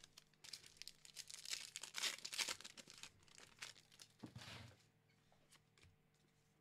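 Foil wrapper of a Pokémon Battle Styles booster pack crinkling and tearing as it is opened by hand, loudest about two seconds in, with a shorter, softer rustle just after four seconds.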